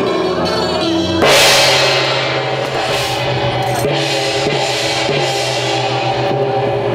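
A melody for about a second, then a loud crash and a run of gong and cymbal strikes with drum, the low ringing of the large hand gongs held beneath them: Taiwanese temple ritual percussion.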